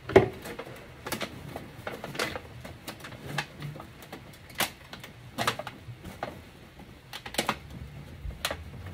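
A sharp knock right at the start, then thin aluminum sheet crackling and popping in scattered sharp clicks, about one a second, as it is pressed and bent by hand around a wire frame.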